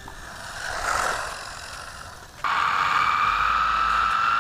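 Electric RC buggy's brushed motor and gear drive running: a whooshing swell rises and fades about a second in, then a loud high whine starts suddenly about halfway through and climbs slowly in pitch as the buggy speeds up.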